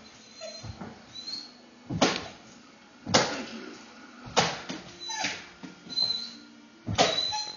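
Dog barking at the television: about six sharp single barks roughly a second apart, with faint high whines between them.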